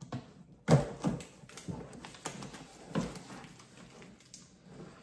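Hands handling a large taped cardboard box: a series of irregular knocks and rustles on the cardboard, the loudest about a second in.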